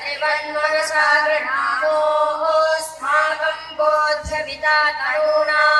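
A group of boys singing a Hindu prayer in unison through microphones and a PA, in melodic phrases of about a second each with short breaks between.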